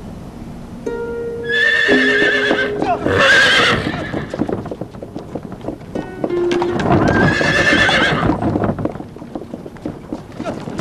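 Horse neighing twice, once about two seconds in and again about seven seconds in, with hooves clopping, over background music.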